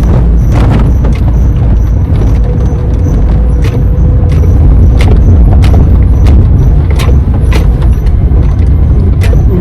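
Loud steady low rumble of a moving vehicle, with frequent sharp clicks and rattles.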